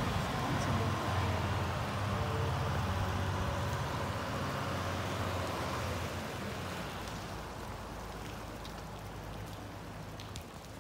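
A tour boat's engine running and its propeller churning the water, the low hum and splashing wash fading steadily as the boat pulls away.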